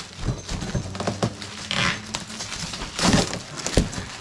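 Cardboard box being opened and its contents handled: irregular rustling and crinkling of cardboard and wrapping, with a couple of sharp knocks in the second half.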